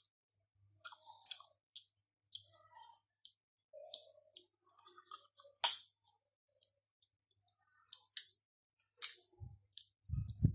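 Close-up eating of a steamed mud crab: scattered sharp clicks and cracks as the claw shell is picked apart and the meat bitten off, the loudest crack a little over halfway through.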